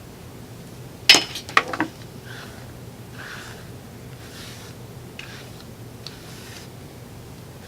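A quick cluster of sharp clicks about a second in, as the plates of a Remington flat iron clack together and it is handled, followed by a few soft swishes of hair being drawn through the straightener.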